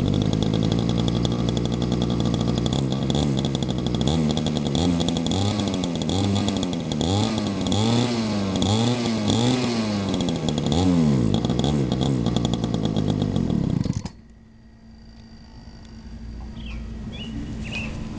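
Small two-stroke weedwacker engine mounted in a homemade RC boat, running just after being pull-started. It is revved up and down over and over, a little more than once a second, with the throttle worked from the radio control. It then cuts off suddenly about fourteen seconds in.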